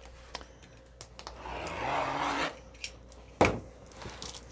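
Utility knife cutting the plastic wrap on a cardboard kit box: a scraping slice lasting about a second, with a few light clicks and one sharp knock about three and a half seconds in.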